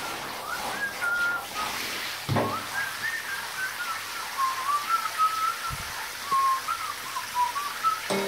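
A tune whistled: one wavering, gliding high tone that changes pitch from note to note, with a dull knock about two seconds in.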